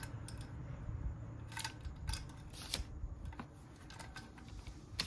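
A handful of light metallic clicks and taps, spread over a few seconds, as engine parts and tools are handled against a disassembled scooter engine's metal crankcase half.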